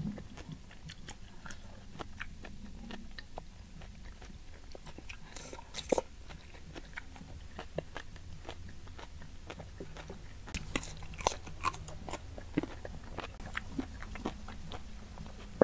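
Close-miked chewing and biting of fried chicken and rice: wet mouth sounds with scattered short clicks and crunches, louder about six seconds in and busiest from about ten to thirteen seconds.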